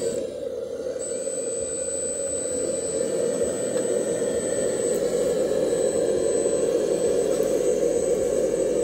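A 1/14-scale RC Iveco 8x8 truck running: a steady mechanical hum from its motors, with a thin high whine that sets in about a second in.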